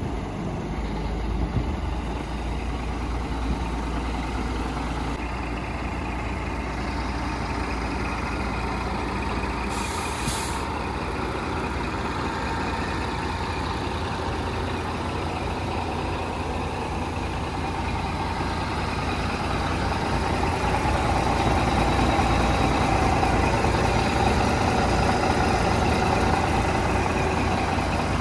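Scania P420 tridem hook-lift truck's diesel engine running steadily, with a short hiss of air about ten seconds in. The engine grows louder over the last third.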